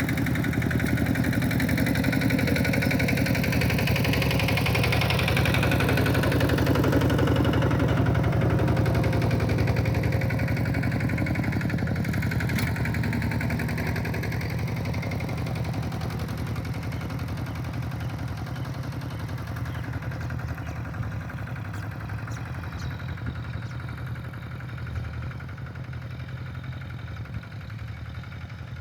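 Kubota diesel tractor engine running steadily while ploughing, growing gradually fainter over the second half.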